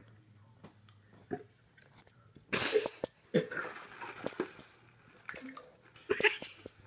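A person gagging and spitting into a plastic cup after eating a foul-flavoured jelly bean: two loud wet bursts about two and a half and three and a half seconds in, small mouth clicks, and another burst near the end.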